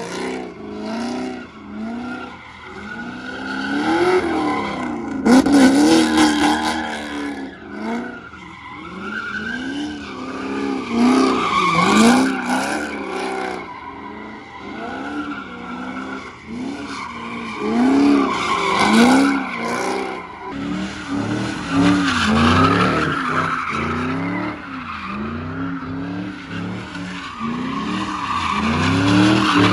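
Car engine revving up and down over and over, roughly once a second, with tyres squealing.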